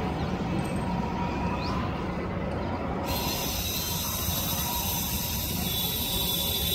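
Steady rumble and hiss of a twin-engine jet airliner on final approach, flaring just before touchdown. A brighter high hiss cuts in abruptly about three seconds in.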